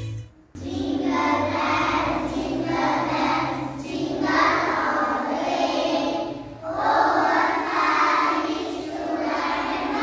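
A group of young children singing together as a choir, after a brief break near the start.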